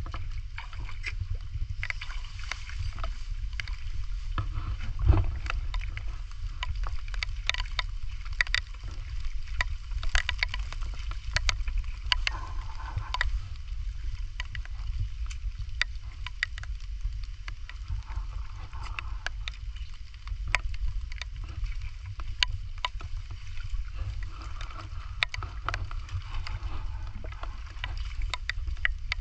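Footsteps wading and splashing through shallow muddy water in the rain, with many sharp ticks of raindrops over a steady low rumble. One heavier thump about five seconds in.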